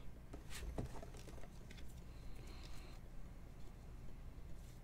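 Faint handling of glossy chrome trading cards: a few soft clicks and slides as cards are moved from hand to hand, over a low steady hum.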